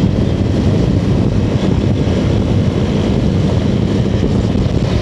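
Motorcycle riding at steady speed: a constant low drone from the bike with wind rushing over the microphone.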